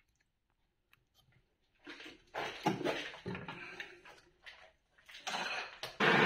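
Irregular metallic clinks and knocks as a dial indicator and its holder are handled and taken off a metal lathe. Near the end the lathe's spindle starts suddenly and runs with a steady, even noise, which is the loudest sound here.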